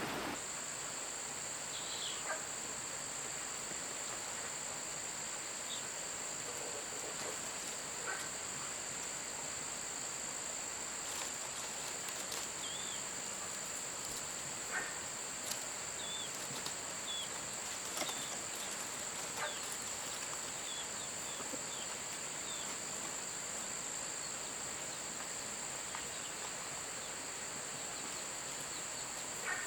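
Steady high-pitched insect drone, with short bird chirps now and then and a few faint clicks.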